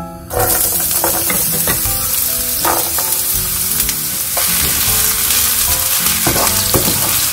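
Diced onions dropped into hot olive oil in a nonstick frying pan: a sizzle starts suddenly about a third of a second in and carries on steadily while a wooden spatula stirs them.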